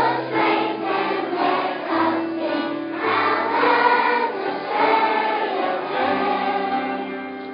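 A choir of school children singing with accompaniment, holding long notes; the singing fades out near the end as the song closes.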